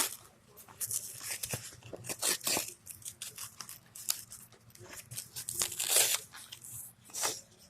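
Packaging being torn and crinkled by hand in a series of irregular rips as someone struggles to get it open.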